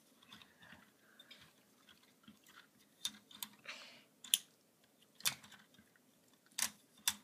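Plastic LEGO pieces clicking and knocking as a large brick-built model is handled and unfolded, with several sharp clicks spread over the second half amid quiet handling noise.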